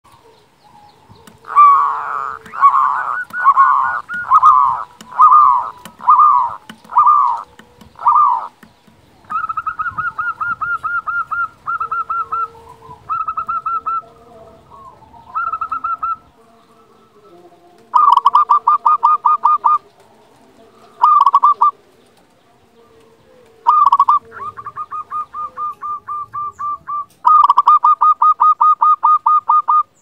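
Zebra dove (perkutut) calling vigorously: first a run of strong drawn-out notes about one a second, then rapid rolling trains of quick cooing pulses in bursts of one to two seconds.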